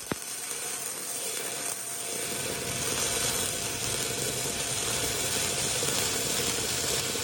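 Stick welding arc from a 3/32-inch E6010 rod, crackling steadily while an inch-long tack is laid on a pipe branch joint.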